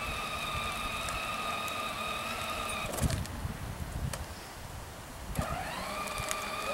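Electric ride-on toy quad's motor and gearbox whining steadily as it drives. The whine cuts off with a thump about three seconds in, then starts again near the end, rising in pitch as the motor spins back up.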